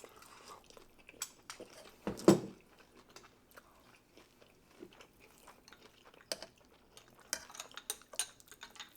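Eating at the table: chewing with small clicks and taps of cutlery on dishes, and one louder thump about two seconds in.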